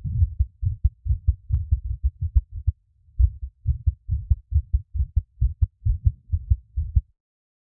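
A human heartbeat recorded close up: quick, low thumps coming several times a second. There is a brief gap about three seconds in, and the beating stops abruptly near the end.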